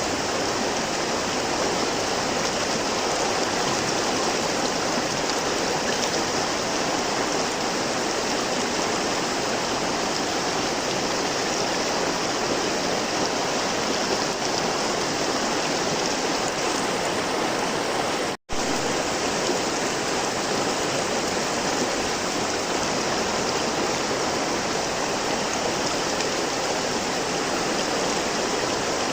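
Flowing river water: a steady, even rush of the current, with a momentary dropout to silence about two-thirds of the way through.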